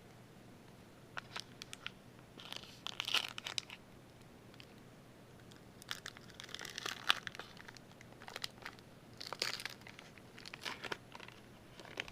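Crinkling and tearing of a baseball card pack wrapper being handled and opened, in about seven short crackly bursts.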